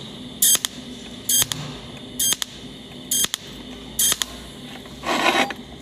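Cold welding machine's pulsed tungsten arc spot-welding the inside corner of iron pieces: five short, sharp hisses about once a second, each followed by a faint tick. Near the end comes a single short, lower rasping noise.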